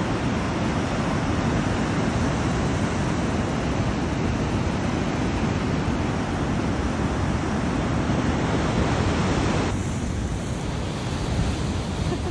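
Heavy ocean surf breaking on the beach: a steady wash of noise mixed with wind on the microphone. About ten seconds in it changes abruptly to a duller, quieter hiss.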